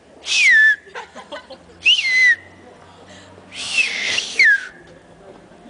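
A woman finger whistling, a finger held in her mouth: three loud, breathy whistle blasts, each sliding down in pitch. The third, about two-thirds of the way in, is longer and rougher, with two falling slides.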